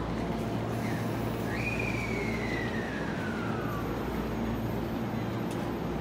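JR West 223 series electric train standing at the platform with its doors closed, its onboard equipment humming steadily. A whine falls slowly in pitch over about two seconds.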